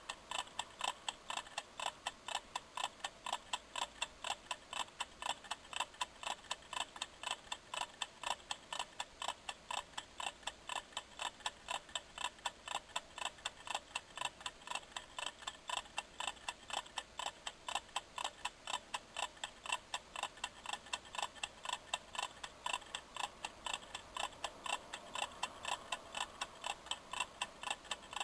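Kitchen timer ticking steadily as it counts down: rapid, even clicks, a few each second.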